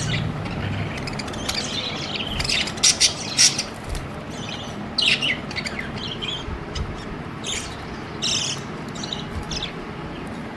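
Budgerigars chirping and chattering in quick, irregular short calls, the loudest cluster about three seconds in.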